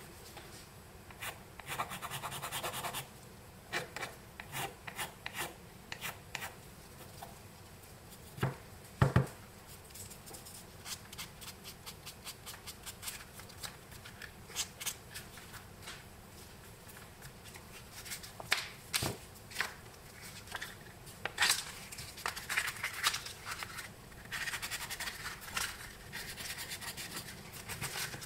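Black Bakelite telephone cap rubbed in short strokes against a coarse abrasive block, a scraping sound with stretches of steady rubbing. Two sharp knocks stand out a little past eight and nine seconds in.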